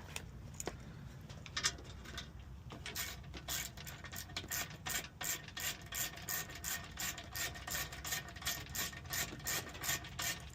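Hand ratchet clicking as a 10 mm screw is backed out. A few scattered clicks at first, then from about three seconds in a fast, steady run of clicks.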